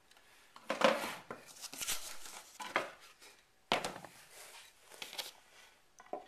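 Wooden pieces of a can crusher knocking and clattering against each other and the workbench as they are handled and set in place: several separate knocks, the loudest about a second in and again near four seconds.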